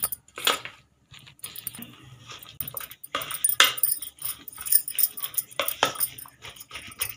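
A spoon stirring thick chana dal and sliced onion pakora batter in a steel bowl: an uneven series of scrapes and clicks against the metal.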